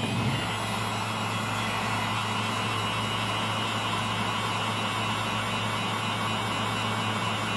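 Heat gun blowing steadily, its fan motor humming under a rush of hot air, as it softens the adhesive under an iPad 2's glass.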